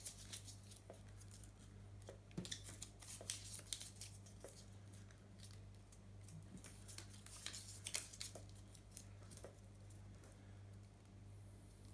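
Small printed paper slips being scrunched and twisted into little balls by hand: soft, irregular paper crackles coming in clusters every second or two.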